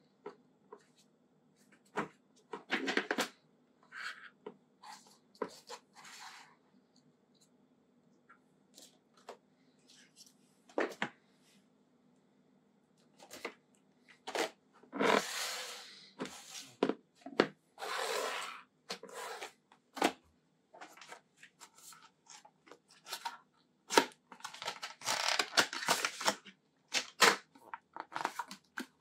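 A smartphone box and its packaging being handled and opened: irregular clicks and knocks mixed with longer stretches of rustling and tearing paper or plastic, busier in the second half.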